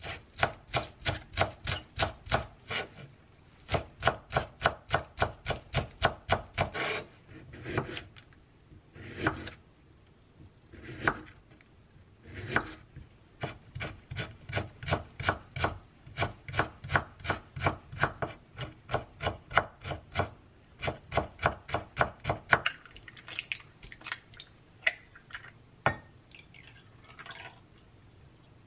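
Chef's knife chopping green onion and carrot on a wooden cutting board: quick runs of sharp knocks, about four or five a second, broken by short pauses, softer and sparser near the end.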